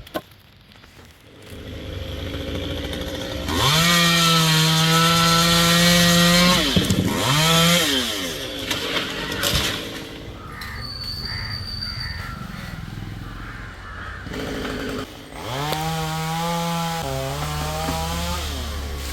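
Two-stroke Stihl chainsaw revved up to full throttle twice, each time held high for a few seconds before dropping back, with a lower running sound in between.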